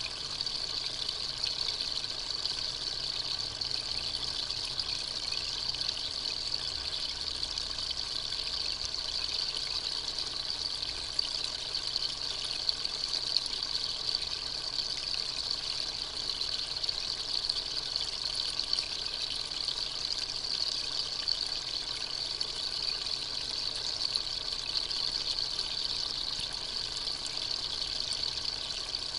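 Steady, even hiss like trickling or running water, strongest in the high range, with no breaks or changes.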